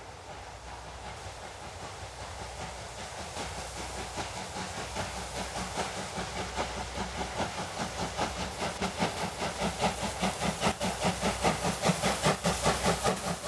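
C58-class two-cylinder steam locomotive's exhaust chuffing in an even rhythm of about three beats a second, growing louder as the engine draws nearer under steam.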